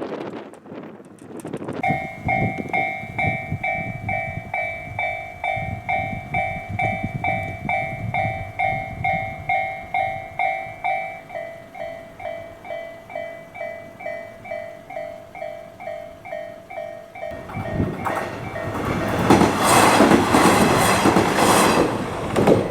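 Japanese railway level-crossing alarm starting about two seconds in, an electronic two-tone ding repeating about twice a second. Near the end a JR Hachikō Line diesel train passes over the crossing, louder than the bell, while the alarm keeps ringing.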